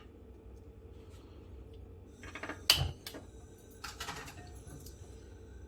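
A frying pan set down on the stove with a knock and a low clank about two and a half seconds in, followed by a few light clicks about four seconds in, over a steady low kitchen hum.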